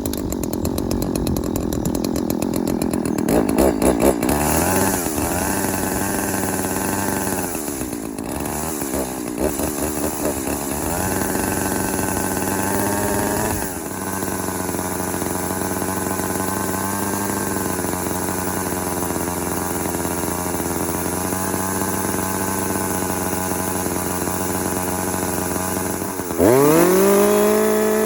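Two-stroke chainsaw running a new, freshly oiled bar and chain. It idles unevenly with several short throttle blips, then settles to a steady idle. Near the end it is revved up hard, its pitch rising sharply.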